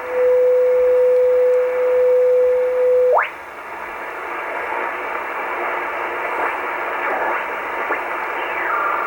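Shortwave receiver being tuned: a steady beat tone from a carrier jumps sharply upward in pitch about three seconds in as the dial moves off it, leaving band hiss. Near the end a falling tone settles into the two-tone warble of a radio teletype signal.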